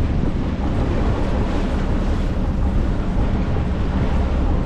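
Wind buffeting the microphone over the steady noise of a moving boat: engine and water rushing past the hull.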